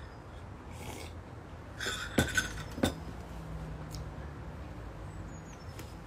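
A ceramic coffee mug set down on a ledge: two short sharp knocks a little over two seconds in, then just under three, after a few soft breathy sounds, over a steady low hum.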